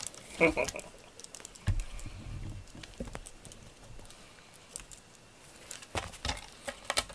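Cat playing on a cardboard scratcher and foam floor mats: scattered clicks and scuffs of claws and paws, with soft low thuds about two seconds in and a cluster of sharper clicks near the end.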